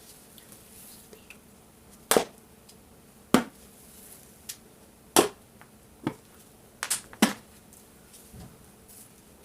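Six sharp knocks and taps of hard objects on a work surface, spaced irregularly about a second apart, with two close together near the end, as paint cups and tools are handled.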